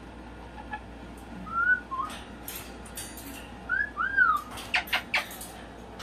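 Cockatoo giving a few short rising-and-falling whistles, then a quick run of sharp clicks near the end as it climbs the wire cage bars.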